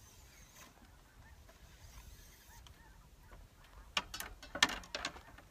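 Handling of a rifle cleaning rod and bore brush at the bench: a quick cluster of sharp clicks and scrapes about four seconds in, after a few seconds of faint background.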